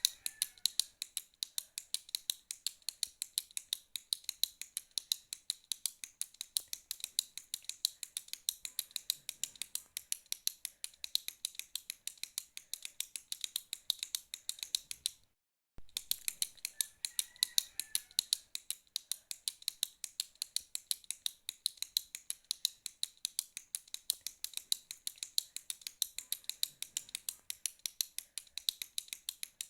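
Retractable pen clicking over and over, about four to five sharp clicks a second, with a half-second break about halfway through.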